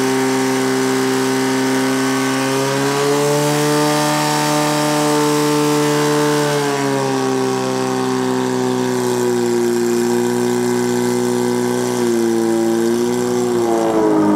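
Portable fire pump's engine running hard as it drives water through the attack hoses, a steady pitched hum. Its pitch rises slightly about three seconds in, falls back about seven seconds in, and drops again near the end.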